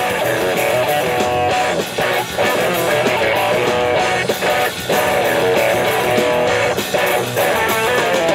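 A small rock band playing live, with electric guitars over a drum kit.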